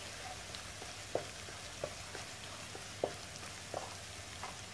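Pounded garlic, black pepper and coriander root frying in oil in a nonstick wok with a steady sizzle. A spatula stirs through it, knocking against the pan about once a second.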